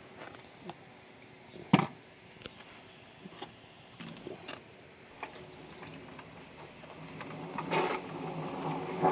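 Handling a Kärcher wet-and-dry vacuum's stainless steel tank full of water: scattered light clicks and one sharp knock about two seconds in, then water sloshing in the tank, growing louder near the end as the tank is tipped to be emptied.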